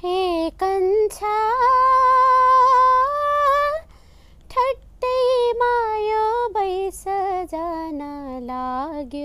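A woman singing unaccompanied: a slow melody of long, wavering held notes with short breaths between phrases, the line stepping down lower toward the end.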